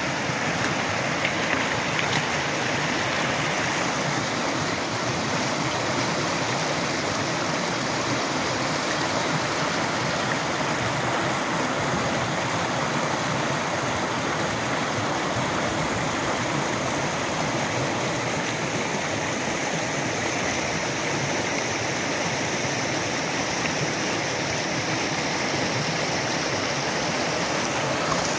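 Shallow river running over rocks in small rapids: a steady rush of white water.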